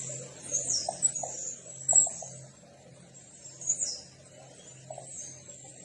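Small birds chirping: short, high calls that mostly drop in pitch, repeated at irregular intervals over a faint steady low hum.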